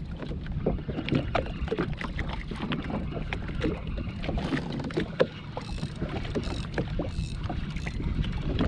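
Small waves slapping and splashing against a jetski's hull in a steady run of irregular knocks, over a low rumble of wind on the microphone.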